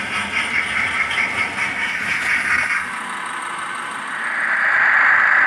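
Model trains running on a layout: a steady hiss and rumble of wheels on track and small motors, which swells louder about four seconds in.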